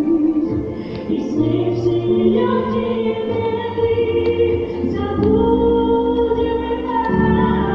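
A song with singing: long held notes sounding together in chords, shifting to a new chord every second or two.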